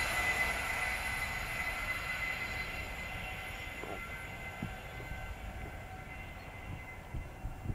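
A passing train receding, its noise fading steadily away, with high steady ringing tones dying out with it.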